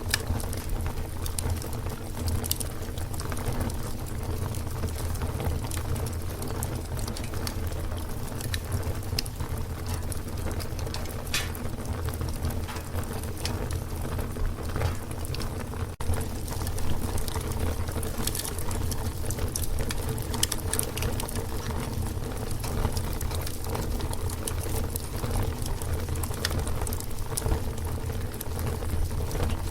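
Fire crackling: a steady low rush of burning with frequent sharp crackles and pops.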